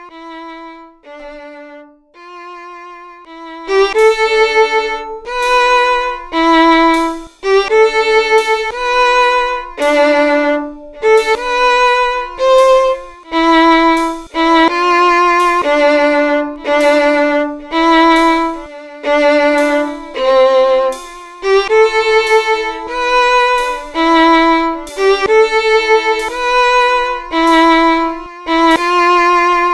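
Solo violin playing a slow melody of separate bowed notes with vibrato, soft for the first few seconds and then much louder from about four seconds in.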